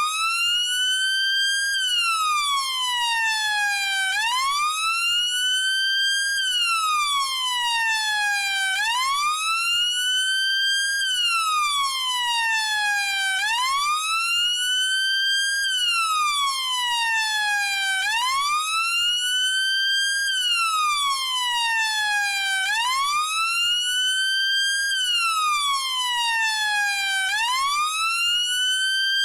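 Chinese police siren wailing in a steady, slow cycle: the pitch climbs quickly, then falls away more slowly, repeating about every four and a half seconds.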